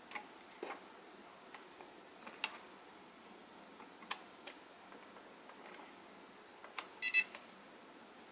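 Faint small plastic clicks from the mix and servo-reverse switches being flipped on a Microzone MC6C radio-control transmitter. A short electronic beep from the transmitter comes about seven seconds in.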